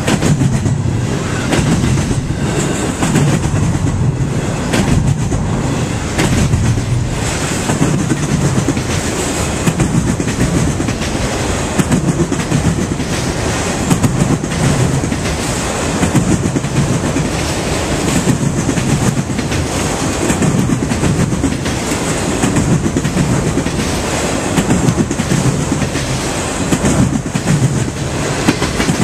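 Loud steady rumble of a long mixed freight train's cars rolling past: double-stack container well cars, autoracks and tank cars. Wheels clack rhythmically over the rail joints, with rattling from the cars.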